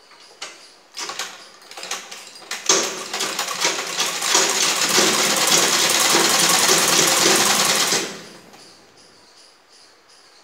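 Sewing machine stitching through fabric: a few short starts in the first couple of seconds, then a steady run of about five seconds that stops abruptly.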